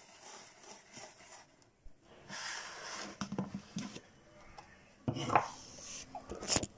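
A mixer jar and its clear lid being handled on a worktop: light knocks and scrapes, with louder knocks about five seconds in and just before the end.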